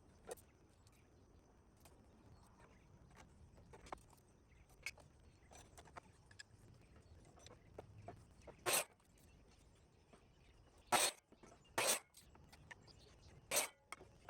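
Mostly quiet, with five short sharp knocks in the second half, two of them close together near the end.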